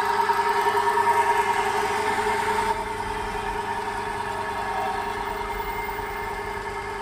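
A 3 HP single-phase capacitor electric motor running free with nothing driven from its pulley, on its test run after fitting and wiring: a steady hum with a constant whine. It is running properly.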